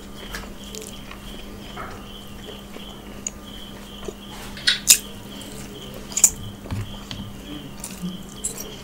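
Eating by hand at close range: fingers squishing and gathering rice on a steel plate, then wet chewing and lip smacks, with a few sharp smacks about five and six seconds in.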